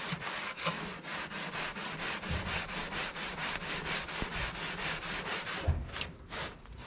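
Wet SOS steel-wool pad scrubbing the metal dashboard of a 1968 Jeep Gladiator in fast, regular back-and-forth strokes, about five a second, stopping about six seconds in.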